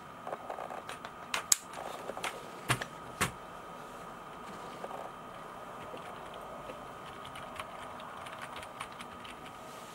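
Micronics MANIC KM330 wireless slim keyboard being handled and typed on: a few loud, sharp clacks in the first three seconds, then quick, light key clicks from its low-profile chiclet keys.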